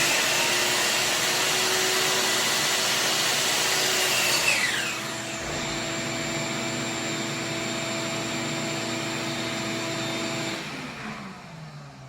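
Woodworking power tool running with a steady high whine. About four and a half seconds in, its note drops and it runs on more quietly. Near the end it is switched off and spins down, its pitch falling.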